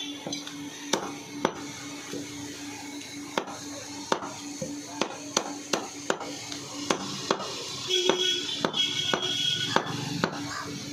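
Cleaver chopping chicken on a wooden chopping block: irregular sharp knocks, one or two a second, over a steady hum.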